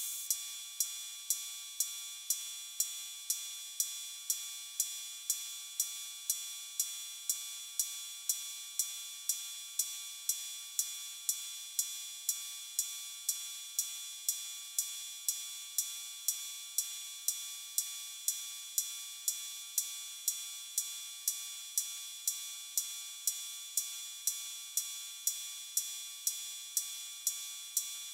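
Breadboarded BOSS DR-110 analog cymbal circuit triggered a little over twice a second, each hit a short metallic tick with a quick decay. With the white noise taken out of the filter inputs, only the metallic noise of the four square-wave oscillators sounds, a thin ringing with steady tones and little high hiss.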